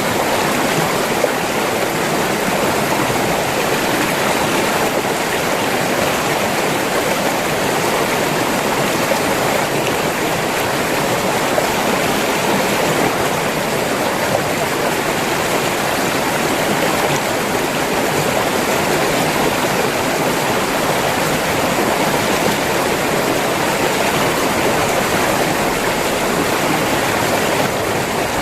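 River water running steadily over rocks.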